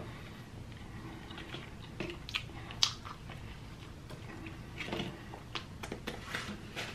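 Close-miked chewing and wet mouth sounds of someone eating, with scattered short smacks and clicks, the sharpest a little under three seconds in.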